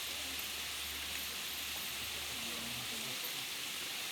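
Waterfall, a steady even rush of falling water.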